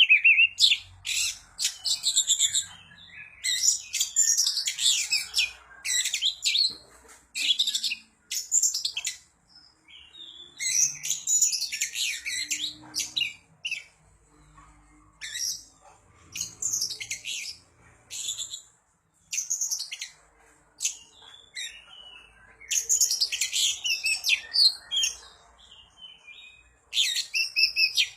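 Oriental magpie-robin (kacer) singing in full voice: fast, varied phrases of high whistles and chattering notes, each a second or two long, with short pauses between.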